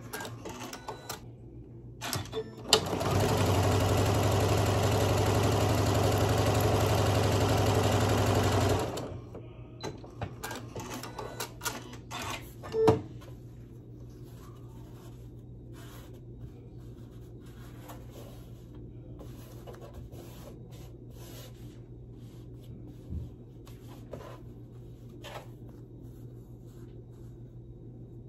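Janome M7 computerized sewing machine stitching a seam at a steady speed for about six seconds, starting about three seconds in. Afterwards a few light clicks and one sharp click, then only a low steady hum.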